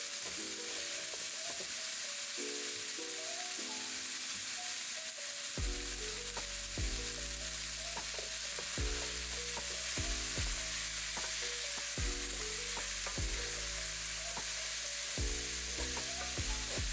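Pork chunks and onions sizzling steadily in bacon grease in a deep skillet. Soft background music plays along, its bass coming in about five and a half seconds in.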